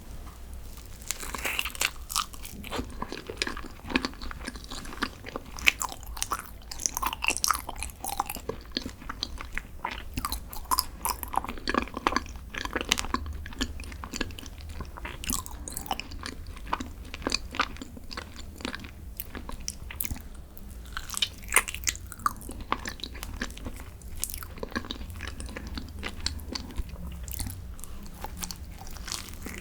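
Close-miked eating sounds of green tea desserts being bitten and chewed, with many small irregular crunches and crackles throughout.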